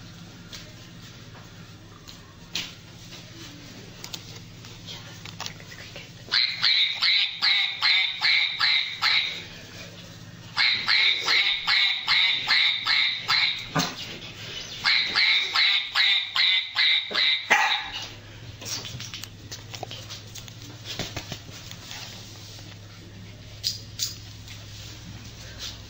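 Small fluffy dog yapping in three runs of quick, high-pitched yaps, about three a second. Each run lasts a few seconds, with short pauses between them.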